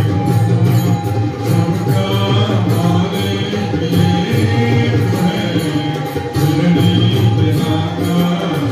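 Devotional chanting of a Hindu temple service, sung to a steady beat of jingling metal percussion.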